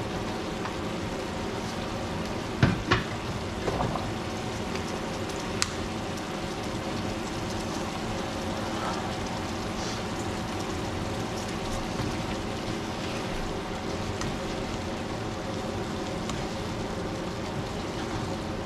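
Sliced onions sizzling steadily in a vinegar and brown sugar sauce in a nonstick frying pan, with a few sharp knocks of a utensil against the pan about three seconds in and again near six seconds.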